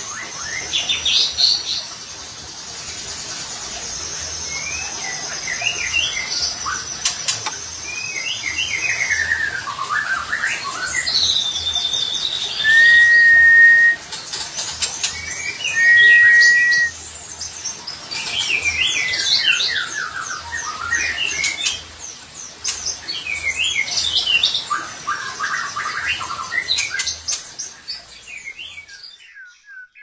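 Pied white-rumped shama (murai batu blorok) singing a varied song of quick rising and falling phrases, with a long high trill early on and two clear, steady whistled notes about halfway through. The song fades out near the end.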